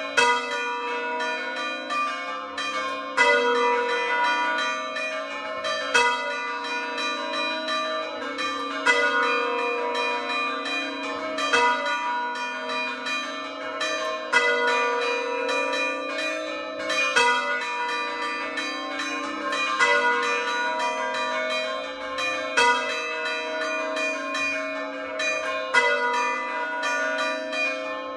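A set of four hand-rung church bells, the largest tuned to A, ringing in a quick overlapping pattern of strokes. A heavier stroke stands out about every three seconds, and the tones hang on between strokes.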